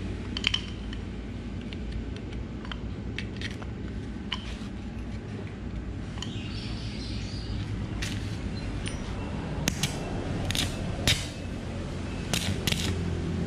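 Scattered sharp metal clicks and clinks as a welding clamp and electrode holder are handled and set on a motorcycle's steel rear sprocket hub, with a brief rustle midway, over a steady low hum. The clicks come more often in the second half.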